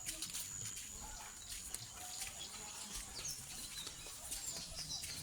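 Birds calling: repeated short, high-pitched chirps that fall in pitch, over a thin steady high tone.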